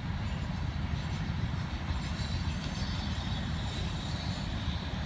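Freight train rolling past on the rails, a steady low rumble from its cars.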